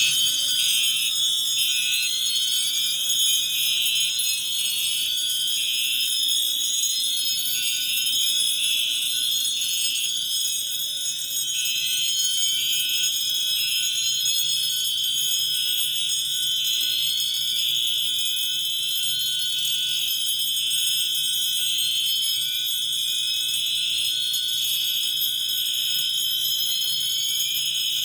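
Several fire alarm notification devices sounding together. A steady high-pitched tone is layered with a rising sweep that repeats about every two seconds and an irregular on-off pulsing tone.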